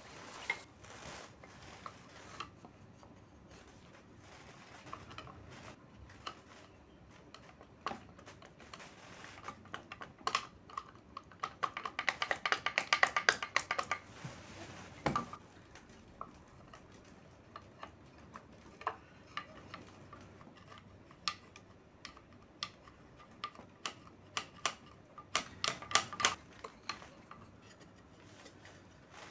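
Hand tools clicking and tapping on the metal camshaft holder and cylinder head of a Honda CBR250R engine as the holder is worked loose and pried up. A fast run of clicks comes about eleven seconds in and is the loudest part; another cluster of clicks comes near the end.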